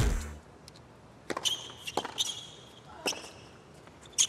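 Tennis ball being struck and bouncing: about six sharp pops, some followed by a brief high ring from the racket strings.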